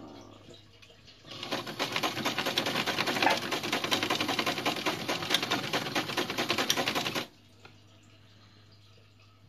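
Sewing machine stitching fabric at a fast, steady rate: a rapid even clatter that starts about a second in, runs for about six seconds and stops suddenly.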